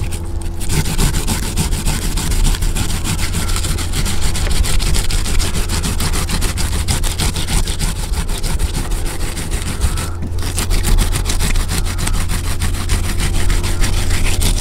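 Arrowroot tubers being grated by hand on a grater: fast, continuous rasping strokes, with a brief pause about ten seconds in, over a steady low hum.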